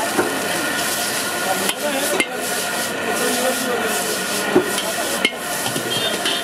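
A long-handled metal ladle scraping and clanking against a steel wok as noodles are stir-fried, with a few sharp clanks among the scraping, over a steady frying hiss.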